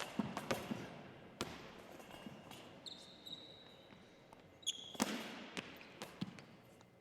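Goalball play: a series of scattered thuds as the belled ball and the players hit the floor, the loudest about five seconds in, with a short high-pitched tone about three seconds in and another just before the loudest thuds.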